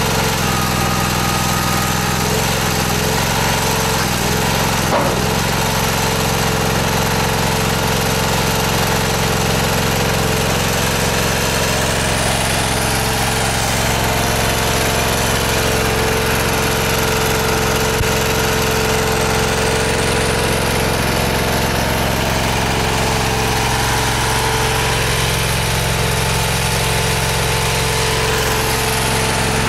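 The stone splitter's power-unit engine running steadily under a constant load. There is a single sharp knock about five seconds in.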